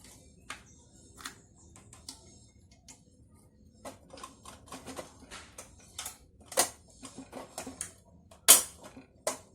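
Irregular light clicks and taps of small toy kitchen pieces being picked up and set down, with two sharper knocks in the second half.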